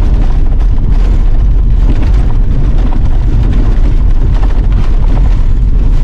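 Loud, heavy rumble of wind and road noise hitting the microphone of a camera in a moving car.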